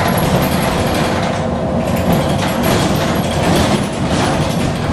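Interior of a moving city bus: engine and road noise with the cabin rattling as it rolls over a rough, potholed road.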